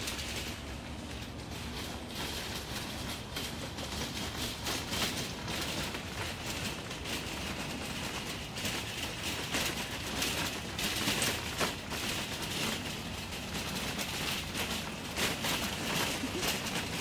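Footsteps crunching on a gravel road while walking, a steady run of short clicks and scuffs.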